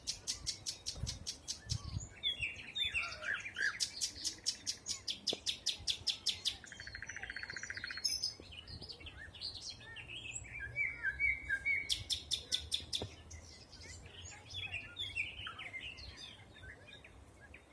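Several songbirds singing in a spring forest. One bird repeats a rapid series of high, sharp notes at about eight a second, three times. A lower, even trill comes about seven seconds in, and shorter warbling phrases from other birds fill the gaps.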